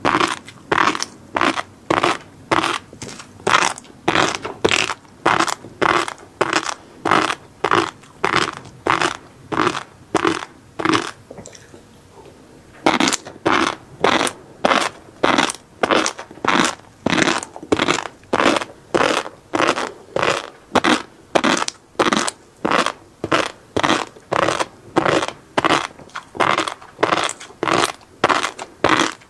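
Close-miked chewing of a mouthful of flying fish roe, the eggs crunching and popping in even bites about two a second, with a short pause near the middle.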